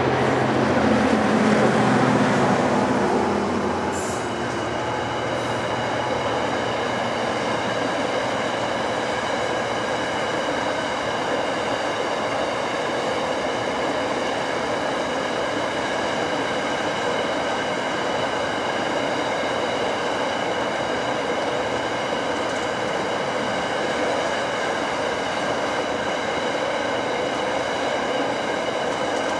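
Diesel locomotive of an iron ore train passing close, its engine sound fading out about four seconds in. Then the steady rumble of the long train of ore hopper wagons rolling by, with a steady high ringing from the wheels over it.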